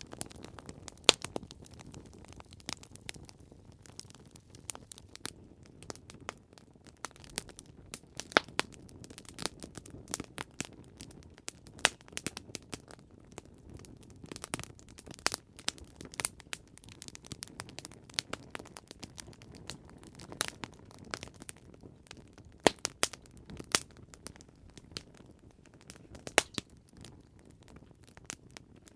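Wood fire crackling: irregular sharp pops and snaps over a low steady hiss and rumble of burning.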